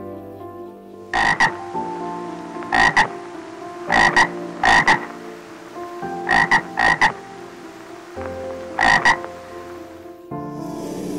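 An animal giving short, repeated calls, mostly in pairs, about a dozen in all, over steady background tones.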